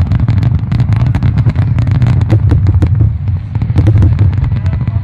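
Fireworks display: a rapid, continuous run of bangs and crackling from bursting shells, several reports a second, over a steady low rumble.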